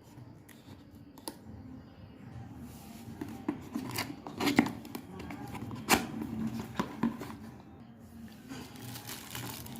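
A cardboard box being opened and its packaging handled: irregular rustling, scraping and small clicks, sparse at first and busier from about three seconds in.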